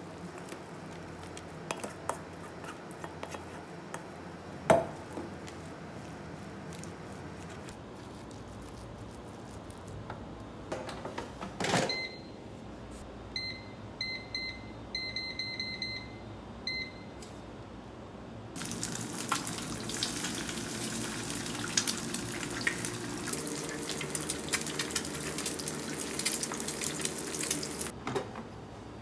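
Hands mixing rice and vegetables in a stainless-steel bowl, with a couple of sharp knocks against the bowl. Then an air fryer's touch panel beeps in a quick series of short beeps as its buttons are pressed. After that a loud steady hiss with crackling runs for about ten seconds and stops abruptly.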